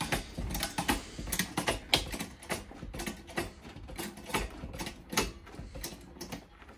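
Tools and car parts being handled, giving irregular light clicks and clinks several times a second.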